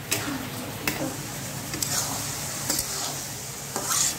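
Metal spatula scraping and turning grated bottle gourd halwa in a metal pan, about five scrapes, roughly one a second, over a steady sizzle as the halwa roasts in ghee.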